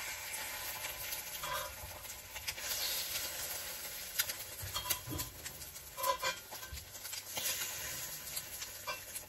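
Egg-soaked bread frying in a cast iron skillet, a steady sizzle of hot fat, with a metal spatula scraping and clinking against the pan several times as the pieces are turned over.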